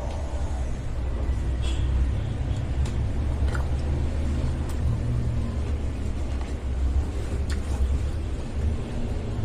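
Close-miked eating of bakso: a steady low rumble with a few light clicks scattered through.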